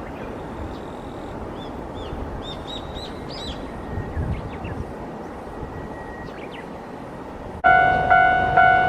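A small bird chirps a quick run of short notes over a steady outdoor hiss. About a second before the end, a railway level-crossing warning bell suddenly starts ringing, a loud electronic ding repeating about twice a second, the signal that a train is approaching.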